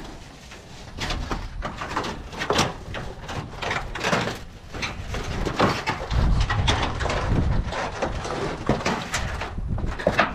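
Scrapes, knocks and rustles come in quick succession, with a low rumble from about six to eight seconds in.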